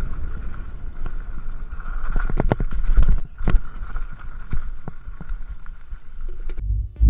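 Mountain bike ridden fast down a dirt forest trail: tyres rumbling over the ground under a steady faint buzz, with sharp rattling knocks from the bike as it hits bumps, bunched between about two and four seconds in.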